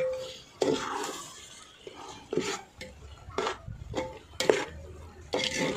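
A metal spoon stirring boiled mutton pieces into thick masala in a hammered aluminium pot, scraping and clinking against the pot's side at irregular intervals.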